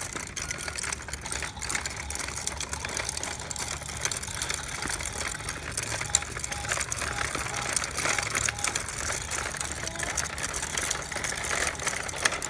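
Plastic wheels of a toy truck rattling over brick paving as it is pushed along: a dense, steady clatter of small clicks.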